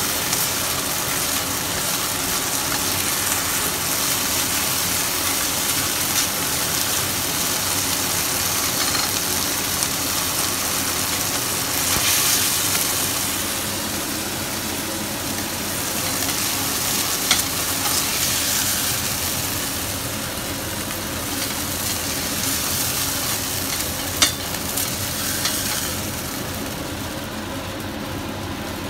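Oysters sizzling in hot oil in a wok as a spatula stirs and scrapes them, with a couple of sharp utensil taps. The sizzle eases off a little near the end.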